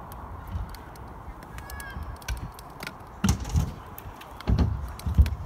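Stunt scooter's wheels rolling and knocking on a skatepark ramp as the rider drops in, the heaviest knocks about three seconds in and again near the end. A short honking call sounds about two seconds in.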